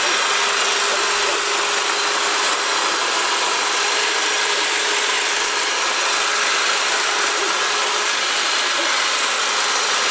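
Electric hedge trimmer running with a steady, unchanging motor whine.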